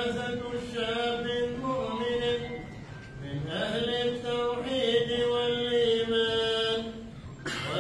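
A man's voice chanting a religious recitation in long held phrases, with a brief pause about three seconds in and another near the end.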